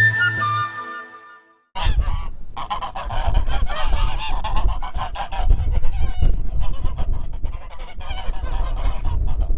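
Background music fades out, then about two seconds in a group of domestic geese starts honking: a dense, continuous run of overlapping calls.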